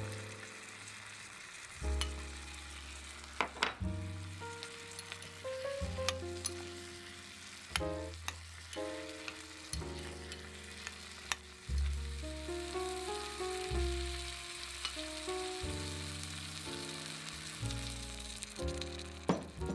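Food sizzling in a tiny clay pot on a miniature burner, with sharp clinks of a small metal spoon against the pot as it is stirred. Background music with a melody and bass line plays throughout.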